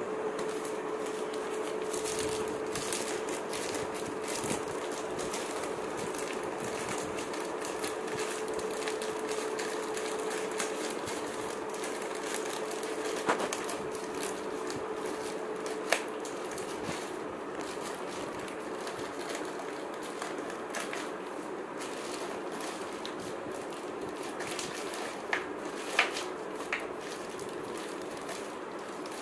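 Plastic courier mailer bag crinkling and tearing as hands pull it open, with a few sharper snaps of the plastic.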